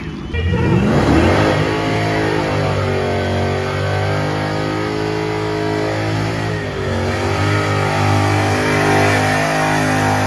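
An old Chevrolet pickup's engine revving hard through a burnout, with the rear tyres spinning. It comes in with a rising rev about half a second in, then holds high revs with the pitch swelling and dipping.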